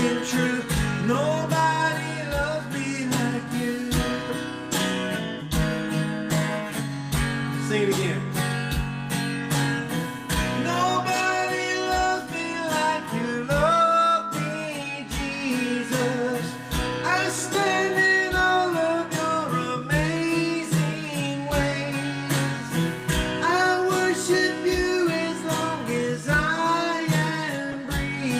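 Christian worship song: strummed acoustic guitar with a steady low beat and singing.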